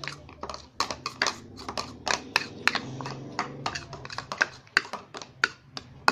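A stirrer clicking and tapping against the side of a container while mixing glue and liquid soap for slime: rapid, irregular clicks, several a second.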